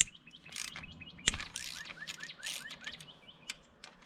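Sharp metallic clicks and scratchy strokes of a wrench loosening the oil filter cover bolts on a Honda CRF250R engine, with the loudest click about a second in. A bird chirps in quick runs of short repeated notes.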